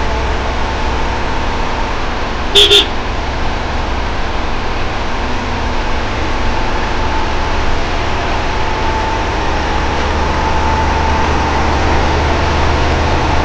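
Heard from inside the cabin of a moving MSRTC bus in heavy monsoon rain: the steady rumble of the bus engine under a dense hiss of rain on the windscreen and tyres on the wet road. A short, sharp double sound about two and a half seconds in.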